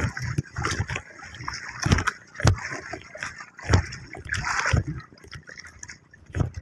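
Sea water splashing and sloshing against the hull of a small wooden outrigger canoe, broken by several sharp knocks and thumps at irregular intervals.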